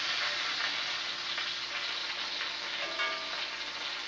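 Bacon sizzling in a frying pan on the stove, a steady hiss.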